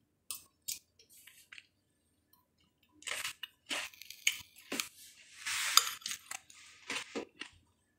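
Close-up chewing of juicy melon: short, wet, crunchy mouth sounds. After a few faint clicks and a near-quiet stretch, they start about three seconds in and come thick and fast to the end.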